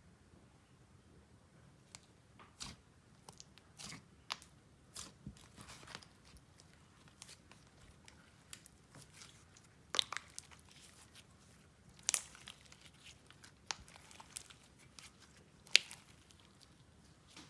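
Layered slime with slushy beads being squished and stretched by hand, giving irregular crunchy clicks and crackles, with the sharpest pops about ten, twelve and sixteen seconds in.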